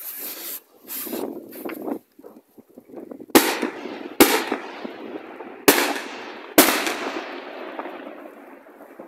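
Fireworks going off: a few short bursts of fizzing noise, then four sharp bangs roughly a second apart, each trailing off in a long echo.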